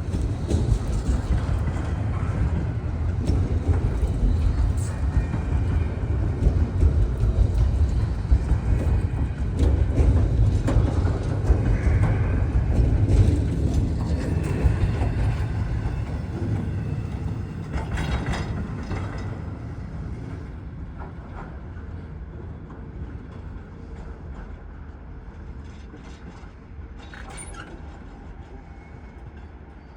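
The last cars of a long freight train rolling past with a low rumble of wheels on rail and some clanking, then fading steadily as the train moves away.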